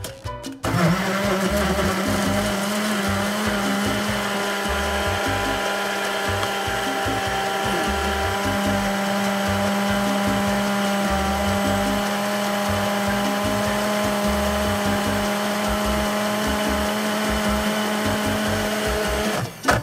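Electric mixer motor running at a steady speed. It starts about a second in and cuts off just before the end.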